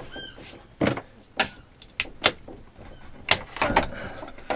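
Wall panel being pushed and slid into place against the caravan wall: an irregular series of sharp knocks with scraping in between.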